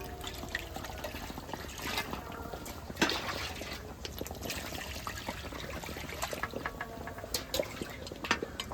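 Water being poured into a pot of cooked curry masala, with a few knocks from the vessel, the loudest about three seconds in.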